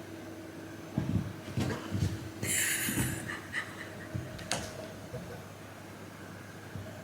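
A dog and cat scuffling at play: a run of soft thumps and knocks, then a short hiss about two and a half seconds in, followed by a few scattered clicks.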